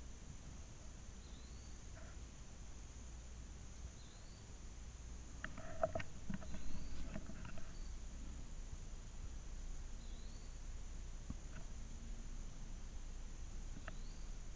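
Steady high-pitched drone of insects in the woods, with faint short chirps repeating every couple of seconds. About six seconds in comes a brief patch of rustling and clicking as the rifle is shifted to a new aim.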